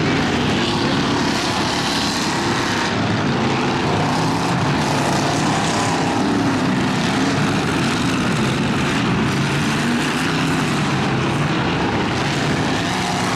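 Engines of several race pickup trucks running hard around a dirt-dusted track, their pitch rising and falling as the drivers get on and off the throttle.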